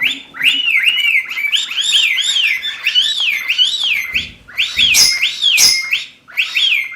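Cockatiel whistling a quick run of repeated arched notes, each rising and then falling, two to three a second. A few soft knocks come through about four to six seconds in.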